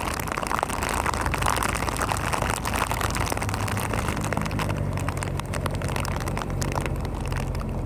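Ford Cortina rally car's engine running steadily at low revs, with many small clicks and ticks over it.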